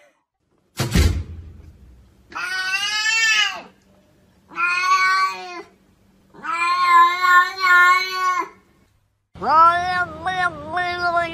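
A thump about a second in, then a domestic cat gives three long, drawn-out meows. Near the end a second cat starts a long meow that wavers up and down in pitch.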